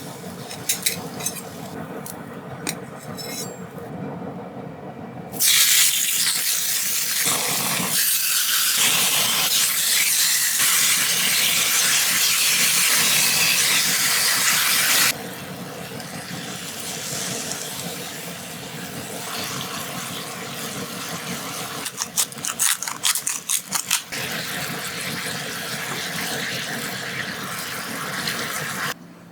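Water running hard from a kitchen tap, turned on suddenly about five seconds in and shut off about ten seconds later. Before and after that, a quieter steady hiss of running water, with light clinks of kitchenware.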